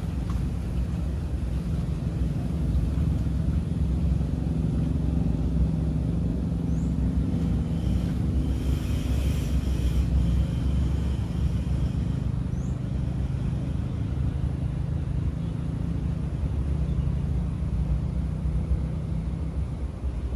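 A steady low engine rumble with a constant hum under it, swelling slightly for a few seconds around the middle. Two faint, short high chirps come through about seven and thirteen seconds in.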